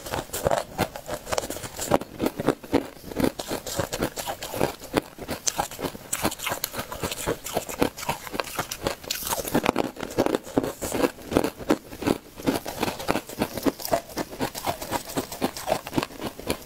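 Chunks of ice being bitten and chewed close to the microphone: a dense, irregular run of crisp crunches that keeps going without a break.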